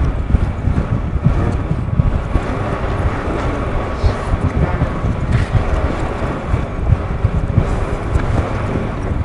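Wind buffeting the microphone: a loud, uneven low rumble that surges and dips.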